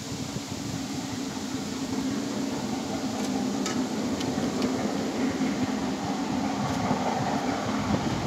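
Low, steady rumble of an approaching train, slowly growing louder.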